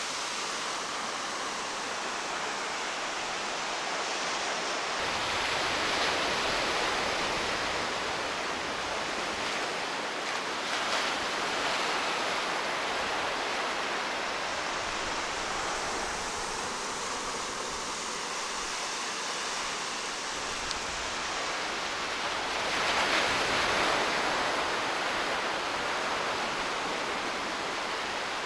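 Small ocean waves breaking and washing over the sand in shallow water: a steady hiss of surf that swells louder several times as waves come in.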